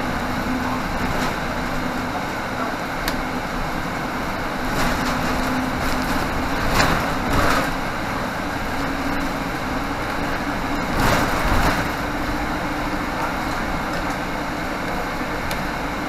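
Interior ride noise of a 2018 Nova Bus LFS diesel transit bus under way: a steady drivetrain hum over road noise. Twice the noise swells louder, about six to eight seconds in and again about eleven seconds in.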